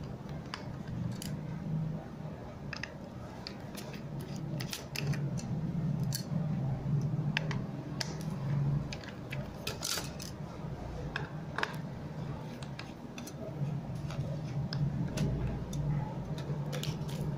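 Precision screwdriver backing the screws out of a hard drive's logic board: scattered small metallic clicks and ticks as the bit seats and turns and the screws come loose. A steady low hum runs underneath.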